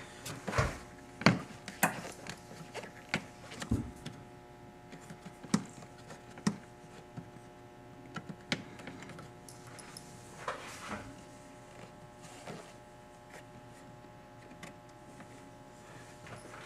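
Irregular plastic clicks and knocks as a new plastic windshield cowl on a BMW E36 M3 sedan is handled and its fasteners are pressed down into their grommets. Several sharper knocks come in the first few seconds, then lighter scattered ones.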